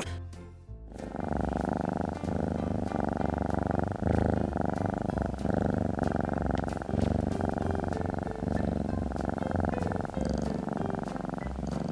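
Domestic cat purring steadily, beginning about a second in.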